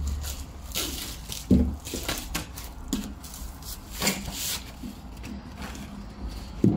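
Clear plastic wrapping crinkling and rustling in short strokes as it is pulled off a roll of photo wallpaper, with the paper roll rubbing as it is handled. There is a soft thump about a second and a half in and another near the end.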